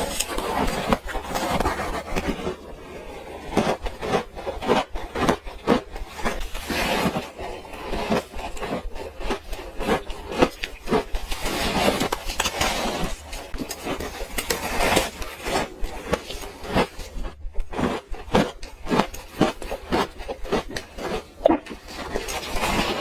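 Close-miked chewing and crunching of frozen orange ice, a fast, irregular run of crisp crunches that continues without a break.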